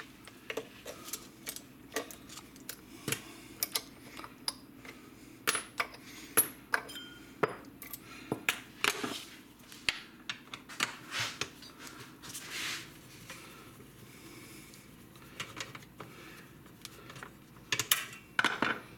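Hand tools clicking and tapping against the metal and plastic parts of a Stihl MS462 chainsaw as it is taken apart by hand: irregular sharp clicks and small metallic clatters.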